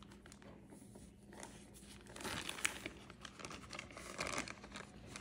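A package of rice flour crinkling and rustling as it is handled, in two louder spells about two and four seconds in.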